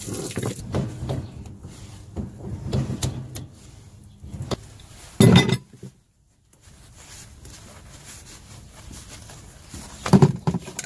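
Handling noise: scattered knocks, clunks and rustling as a hand works low down at the drain fittings of a pool heater. Two louder thumps come, one about five seconds in and one near the end, and there is a moment of dead silence around six seconds in.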